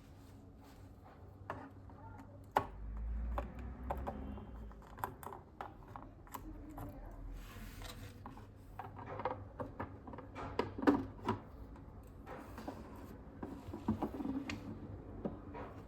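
Irregular light clicks, taps and knocks of small objects being handled in a small room, with a brief low rumble about three seconds in.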